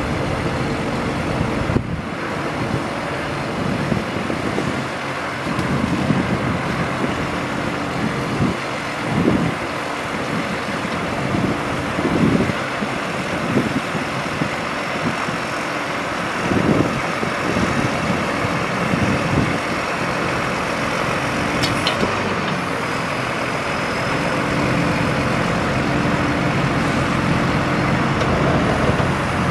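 A 1999 Ford F-Series mechanics truck's engine running with a steady hum while its National N80 crane boom is lowered. The sound swells briefly several times and grows a little louder near the end.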